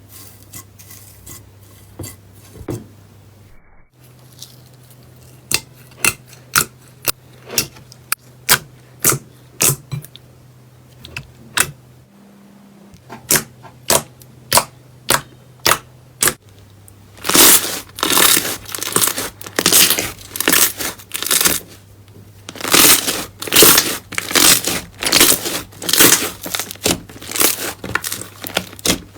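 Slime being pressed and squeezed by hand: a run of sharp pops and clicks, a couple a second, turning into denser, louder crackling in the last dozen seconds.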